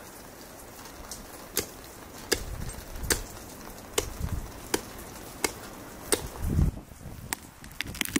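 Chopping: a blade strikes about every three quarters of a second in a steady rhythm, with a heavier low thump about two-thirds of the way through.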